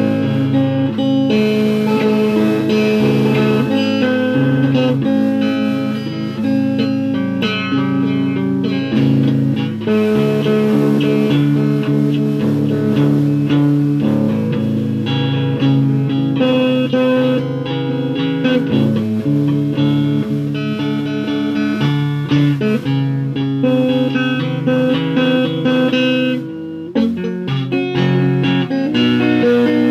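Guitar music: plucked guitar notes and chords played continuously.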